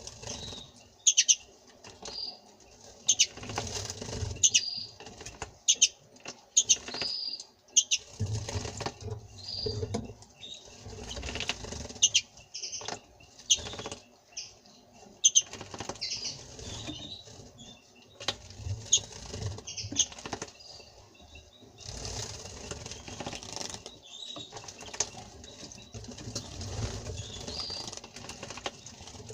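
Small songbirds, European goldfinch and common rosefinch, bathing in a water dish: repeated bursts of wings fluttering and splashing in the water, with short high chirps in between.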